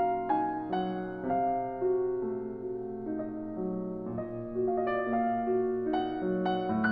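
Background piano music: single notes struck one after another over held lower notes, at a gentle, unhurried pace.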